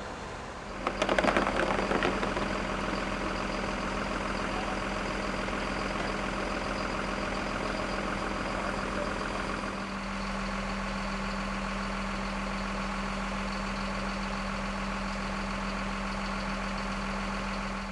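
Truck engine idling steadily, with a burst of clattering knocks about a second in.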